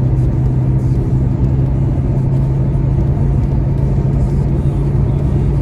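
Kia Picanto's 1.2-litre engine pulling steadily in fourth gear at about 105 km/h under automatic transmission, a steady low drone over road and wind rumble as heard from inside the car.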